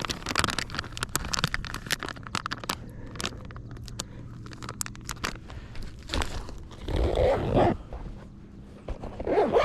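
Close, handled clicks, scrapes and rustles, as of hands working a fishing rig while hooking live baitfish, with a brief low rushing burst about seven seconds in.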